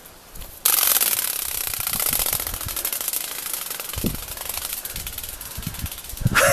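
Rubber-band-driven flapping wings of a Spin Master Racing Toothless toy dragon, a fast, even rattle of wing beats that starts suddenly about half a second in as the toy is released, then fades over several seconds.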